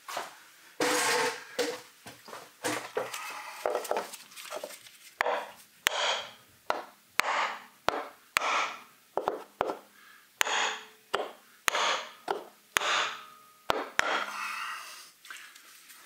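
Hammer blows on a wooden block held against a Mitsubishi 4B11 engine's valve cover, knocking the cover loose where its seal has stuck to the head. The blows are sharp and repeated, about one to two a second.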